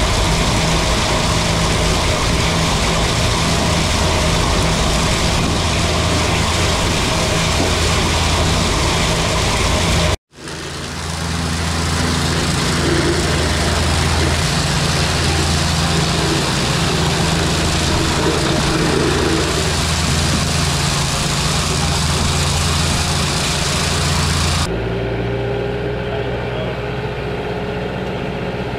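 New Holland tractor engine and its trailed drum mower running steadily while cutting, loud and rushing with a steady engine hum underneath. The sound drops out for a moment about ten seconds in. About twenty-five seconds in the sound turns muffled, the engine now heard from inside the tractor's cab.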